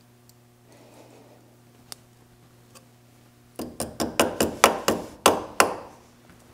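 About ten quick, sharp metal-on-metal taps with a short ring, starting a little past halfway: a hand tool knocking the steel cotter pin's legs down over the castle nut on a Chevy K10's steering-linkage joint. Before the taps come a few faint clicks of pliers working the pin.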